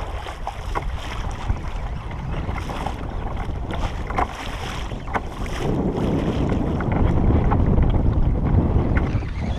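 Wind buffeting the microphone over choppy open ocean, with water splashing and slapping against the kayak's hull. The wind noise swells louder a little past halfway.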